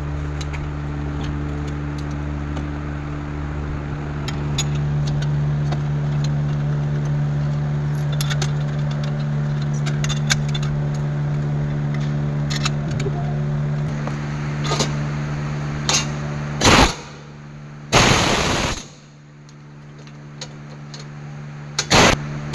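A steady mechanical hum with scattered small metallic clicks. Later come several loud short bursts of a pneumatic impact wrench, the longest lasting nearly a second.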